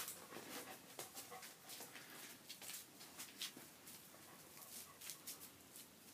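A large long-haired dog moving about close by: faint, irregular clicks and scuffs.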